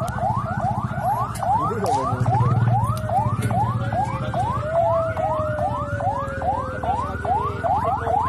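Electronic alarm siren sounding a fast, repeating rising whoop, about three sweeps a second. Across the middle a second long tone slides slowly downward.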